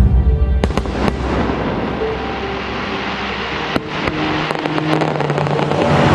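Fireworks bursting over recorded music in a pyromusical show: a deep boom at the start, sharp cracks about half a second and a second in and again near four seconds, then a quick run of cracks around five seconds.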